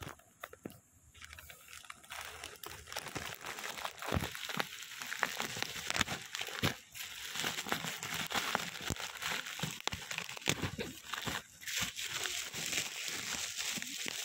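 Plastic packaging crinkling and rustling as it is handled and pulled open, in dense, irregular crackles. It is quieter for the first couple of seconds.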